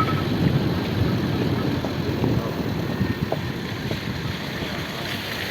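Low, rough rumble of an off-road vehicle on the move, with wind buffeting the microphone.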